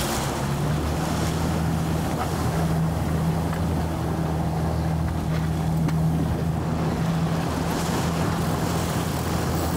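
Boat's single engine running steadily with a low hum, over water rushing past the hull and wind on the microphone.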